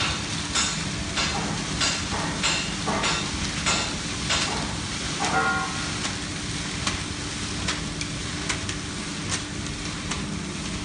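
Small 70-litre electric concrete mixer running, its 1 hp Mitsubishi motor giving a steady hum while the turning drum tumbles a sandy mix, making gritty swishes about twice a second that fade in the second half. A short squeal about five seconds in.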